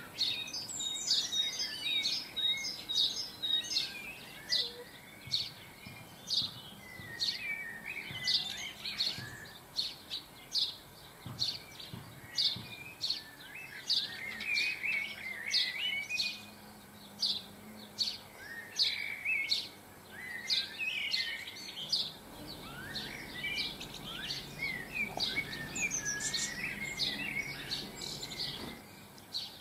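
Small garden songbirds chirping and twittering: sharp, high single calls repeated about one to two times a second, with quicker twittering phrases in between.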